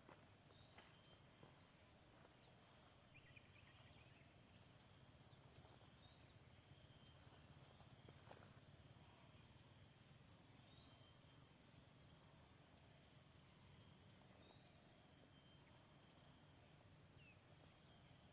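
Faint, steady high-pitched drone of insects, with a few short faint chirps scattered over it.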